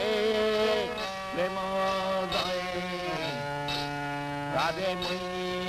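A man singing a slow Bengali devotional bhajan, holding long notes that each slide up into pitch.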